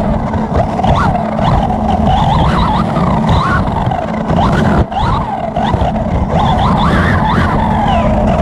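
Onboard sound of a 1:8 scale electric R/C buggy racing on dirt: its Hobbywing 3600kv brushless motor and gear drive whine, rising and falling in pitch with the throttle, over a steady rumble of the tyres and chassis on the track. The sound dips briefly about five seconds in.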